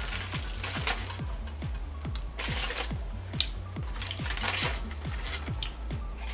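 Background electronic music with a steady beat, about four beats a second, with short crisp rustling and crunching noises over it from eating a burrito.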